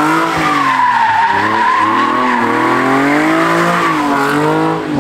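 Car sliding sideways in a drift: tires squealing without a break while the engine's revs swing up and down at high rpm.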